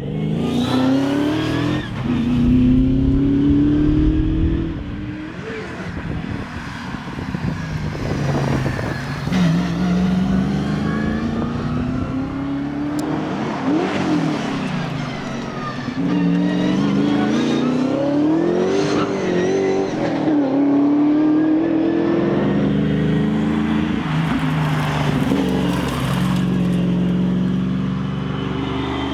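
Holden Torana rally car's engine driven hard, revving up through the gears with its pitch climbing and then dropping at each shift and as it slows for corners, over and over.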